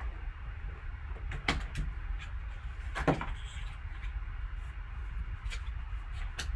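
Card box packaging being handled and opened: a few short clicks and rustles, the loudest about three seconds in, over a steady low hum.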